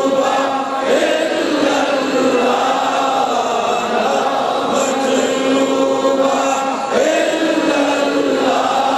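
A man chanting a devotional zikr into a microphone, in long held, drawn-out notes, with new phrases beginning about a second in and again near the seventh second.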